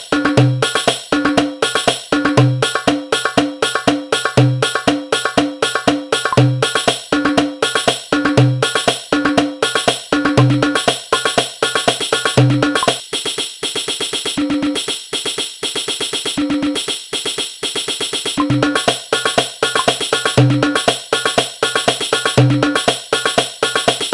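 Darbuka rhythm loop in hadroh-habsyi koplo style, played from a darbuka rhythm app: deep doum strokes under fast, sharp tek strokes, with jingling like a tambourine's. About thirteen seconds in, the deep strokes mostly drop out for several seconds and return near the end.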